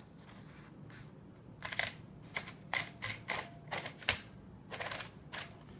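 Irregular mechanical clicks and clunks from a manual typewriter being handled and set in place, about ten sharp knocks in a few seconds, the loudest about four seconds in.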